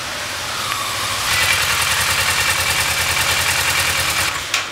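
Motorcycle engine running at low speed as the bike rides in and pulls up, with a steady rapid firing beat that cuts off abruptly near the end.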